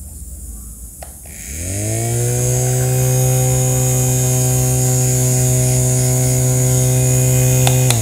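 Small electric motor of a handheld mini fan switched on with a click about a second in, rising in pitch as it spins up, then running with a steady hum. A click near the end.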